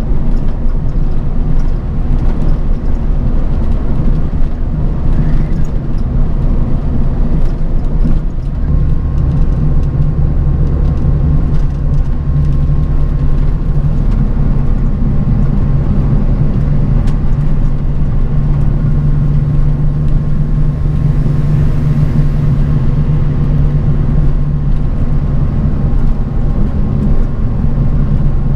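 A bus on the road, heard from inside the cabin: steady engine drone and low road rumble. The engine note deepens and grows louder about eight seconds in, with occasional faint clicks.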